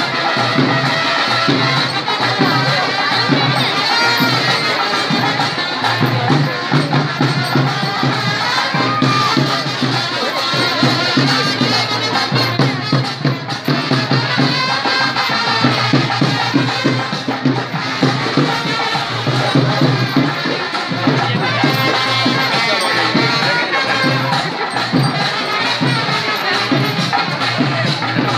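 Traditional music with rhythmic drumming and a shaken rattle, over the noise of a crowd.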